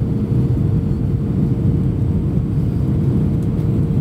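Airbus A320 cabin noise in flight: a steady low rumble of the engines and airflow, with a thin steady hum above it.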